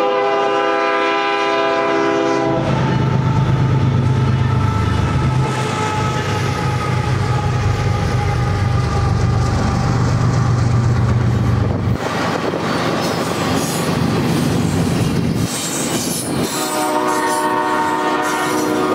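Diesel locomotive air horn blowing a chord for the first two or three seconds, then the deep low rumble of the GE ES44AC locomotives' engines passing close by. After about twelve seconds this gives way to the rumble and wheel clatter of double-stack container cars rolling past, and the horn chord sounds again near the end.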